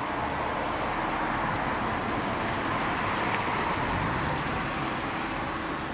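Road traffic: a car passing on the street, a steady rush of tyre and engine noise that swells slightly toward the middle and eases a little near the end.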